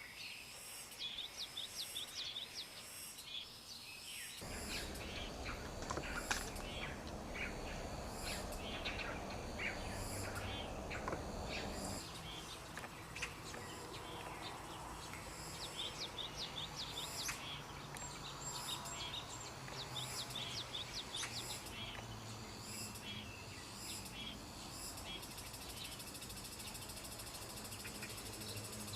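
Birds chirping: many short, high-pitched chirps repeating throughout, over a steady outdoor background hiss that gets fuller about four seconds in and changes again about twelve seconds in.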